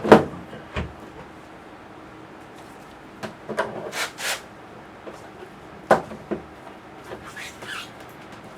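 Hard plastic parts of a worm compost bin being handled and fitted together by hand: scattered clicks, knocks and rubbing, with the sharpest knock about six seconds in.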